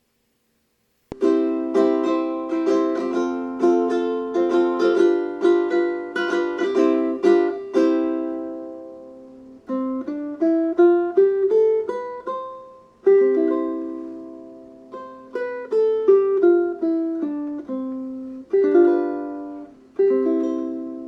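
Seilen SLT-104vm tenor ukulele with a vintage Honduras mahogany body, played solo and starting about a second in: a quick run of chords, then a slower passage of single notes and chords, the last chord left to ring.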